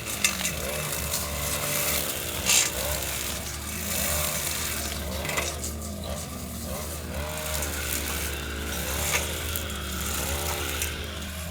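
Petrol lawnmower engine running steadily, its pitch dipping and recovering every second or so as it cuts, with a few sharp clicks along the way.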